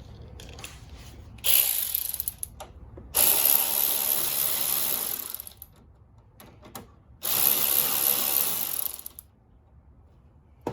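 Ratchet with an 11 mm socket clicking rapidly in three runs, each about one to two seconds long, as it drives in the screws holding the radiator cooling fan assembly.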